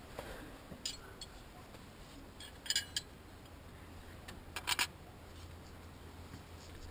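Metal hand tools clinking and clattering against each other in a few short bursts as they are picked through, over a faint steady low hum.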